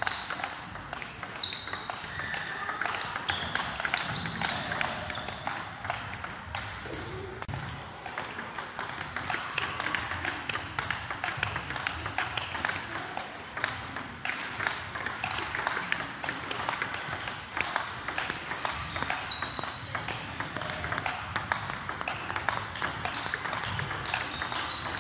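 Table tennis rallies: the ball ticking back and forth off the bats and the table in a fast, continuous run of sharp clicks.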